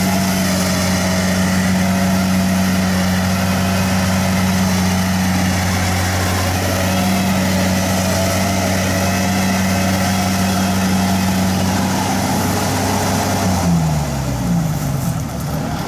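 Kubota rice combine harvester's diesel engine running steadily under working load as it cuts rice. About two seconds before the end its pitch drops in a few falling glides as the machine slows.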